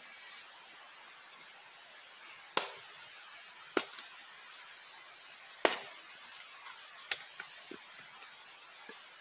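Hatchet splitting a block of wood held upright on a stump: four sharp chops, one to two seconds apart, then a few lighter knocks of wood near the end.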